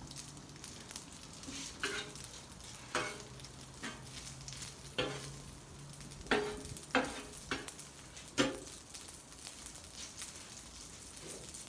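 Metal spatula scraping and clacking on the steel Blackstone flat-top griddle as spaghetti noodles are tossed, over a steady sizzle of frying. There are about eight sharp clacks, bunched in the middle, and a low hum that fades out about halfway through.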